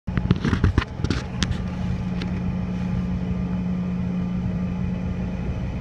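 Bombardier CRJ-900's rear-mounted jet engines running steadily on the ground, heard as a steady hum with a strong low tone inside the cabin. A few sharp clicks and knocks sound in the first second and a half, and one more a little after two seconds in.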